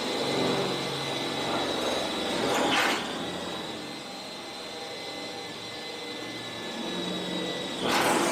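Handheld electric power tool running with a steady high whine, louder in two brief surges about three seconds in and near the end.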